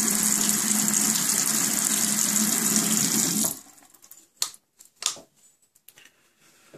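Bathroom sink tap running a steady stream into the basin, shut off about three and a half seconds in. It leaves a thin trickle and a few faint clicks.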